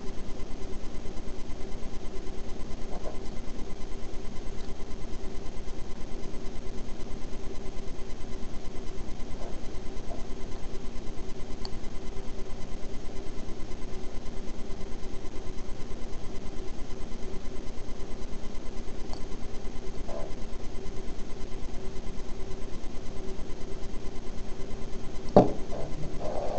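Steady electrical hum with a fast, even pulsing, a few faint clicks, and one sharp knock about 25 seconds in as the atomizer is handled.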